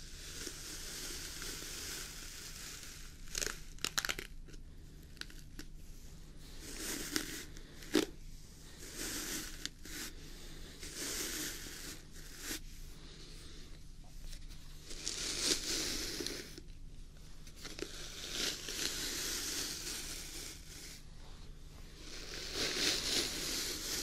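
A paddle hairbrush and fingers working through a long, thick beard right at a binaural dummy-head microphone: a series of scratchy brushing strokes, each lasting a second or more, with a few sharp clicks about four seconds in and again at eight.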